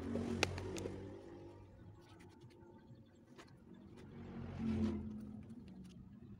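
A motor vehicle engine hums in the background, swelling near the start and again about two-thirds through. Over it come soft scratching of potting soil and a few light knocks as a plastic plant pot is handled and set down.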